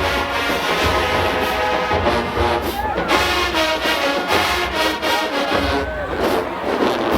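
Marching band playing at full volume: massed brass, trombones prominent, over steady bass drums.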